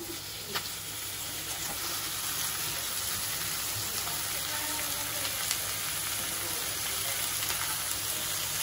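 Chopped onions and tomatoes frying in a pan, a steady sizzle that builds a little over the first two seconds and then holds.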